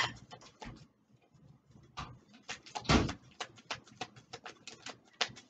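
A deck of oracle cards being shuffled and handled: a run of quick card clicks and flicks, with a louder knock about three seconds in.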